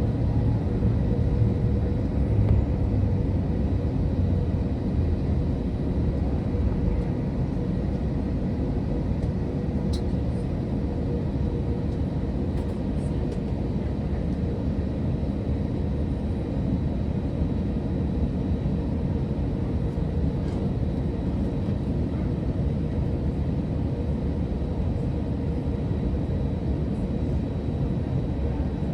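Steady cabin noise of an Airbus A321-200 with its jet engines running: a continuous low rush with a faint steady hum, easing slightly over the first few seconds.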